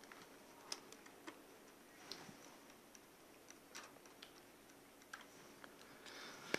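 Faint, irregular small clicks, a handful spread over several seconds, from a screwdriver driving small screws back into a mortise lock case.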